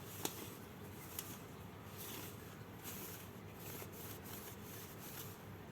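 Quiet steady background noise, with one sharp click about a quarter of a second in and a fainter tap about a second in.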